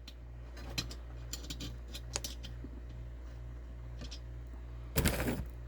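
Small clicks and taps of bolts and hardware being picked up and handled, with a brief louder rattle about five seconds in, over a steady low hum.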